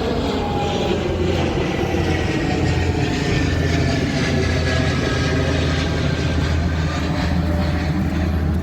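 Jet aircraft passing low overhead: a steady roar with whining tones that slowly fall in pitch as it goes by.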